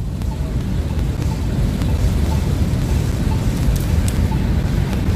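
Wind rumbling on a phone microphone over the noise of a city street at night, with a faint short beep repeating about twice a second.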